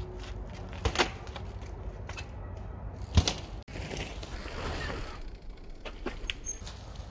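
Kona Honzo hardtail mountain bike's wheels and frame hitting concrete blocks during trials hops: two sharp knocks about a second in, a louder single impact about three seconds in, and a few lighter clicks near the end, over a steady low wind rumble on the microphone.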